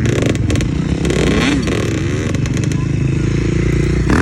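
Small ATV engine running steadily, its pitch rising and falling briefly in the middle, with a few short clattering knocks near the start.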